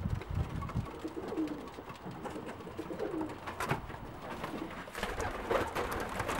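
English tippler pigeons cooing: several short, low coos a second or two apart, with a few sharp taps and a brief wing flutter among them.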